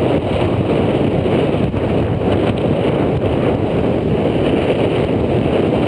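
Wind buffeting the microphone of a body-worn camera high in a treetop: a steady, loud, low rushing noise with no breaks.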